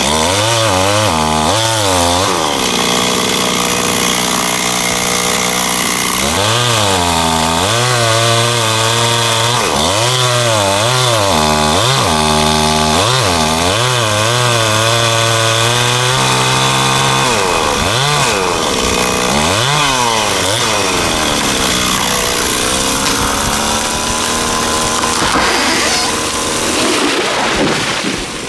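Chainsaw cutting into a dead ash tree. Its engine pitch repeatedly sags under load and climbs back, with steadier stretches at high speed in between.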